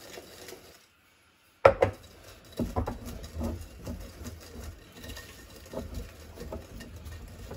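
One sharp knock, then irregular knocks and scraping of a spatula worked through thick chocolate paste in a bowl.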